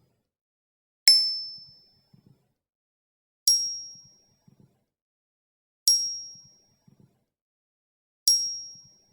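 A high metallic ding sounds four times, evenly about every two and a half seconds. Each strike rings out and fades within a second. Faint low clicks come between the strikes.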